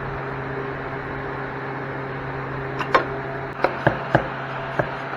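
A steady machine hum in a small room, with a few sharp clicks and knocks in the second half, typical of tools being handled.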